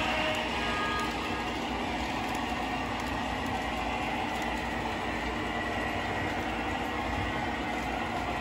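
Lionel O gauge three-rail model trains running, a steady noise of wheels on track and motors.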